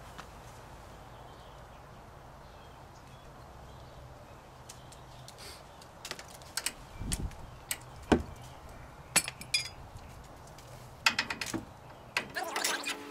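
Metal clinks and knocks of a ball joint press being fitted and adjusted on a truck's front steering knuckle. The first few seconds are quiet, then scattered sharp clinks begin about halfway in, the loudest about eight seconds in, with a quick run of them near the end.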